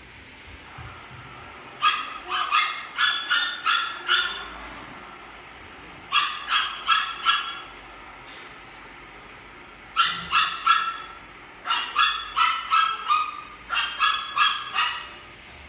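Dog barking in quick high-pitched runs: five bouts of about three to eight barks each, with pauses of a second or two between them.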